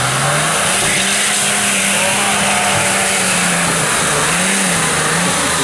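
Off-road SUV's engine revving hard and holding high revs under load as it drives through mud, dipping briefly about four and a half seconds in.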